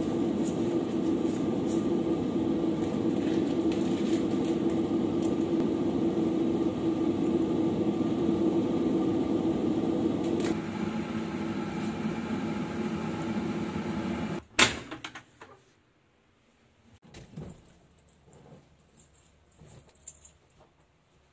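A steady machine hum with a low drone, like a running appliance motor or fan. It breaks off at a single sharp knock about two-thirds of the way in. After that there is only faint rustling and handling noise.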